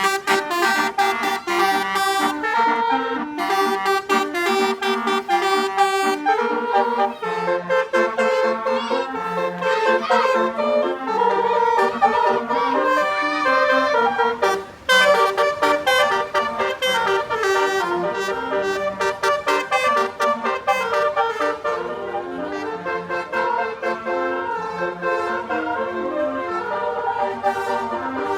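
Basuri musical multi-tone air horn playing a melody note by note. Brassy stepped tones come in quick short toots at first, then longer held notes.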